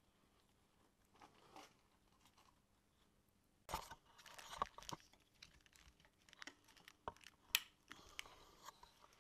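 Near silence at first, then faint handling noises about a third of the way in: rustling and crinkling with scattered sharp clicks, one louder click among them.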